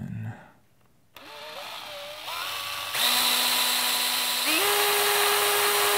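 Cordless drill with a slightly larger bit widening the centre hole of a servo's small plastic top gear. The motor starts about a second in at a low, wavering speed, then runs steadily, stepping up in speed twice.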